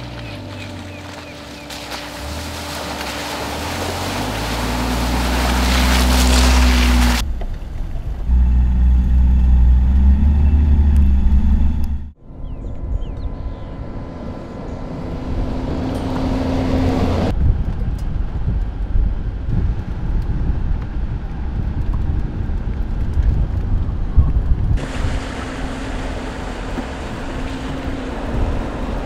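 Mercedes-Maybach G 650 Landaulet's twin-turbo V12 running off-road, in a string of edited shots. The engine note rises in pitch as it accelerates over the first several seconds, then runs at steadier revs. The sound changes abruptly between shots, with a brief dropout about twelve seconds in.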